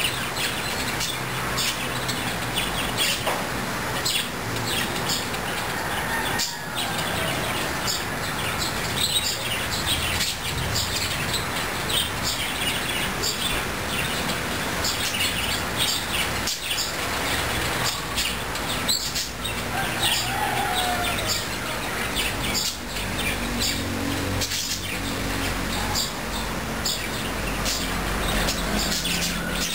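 Many birds chirping and calling together in a dense, continuous chorus of short chirps, over a low steady rumble.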